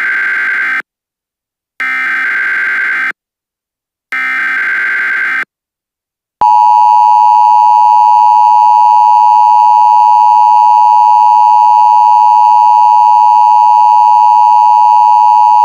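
Emergency Alert System header: three identical bursts of screeching digital data tones, each about a second long with short gaps between them. About six seconds in, a loud, steady attention tone begins and holds unbroken, sounding the start of a new alert message.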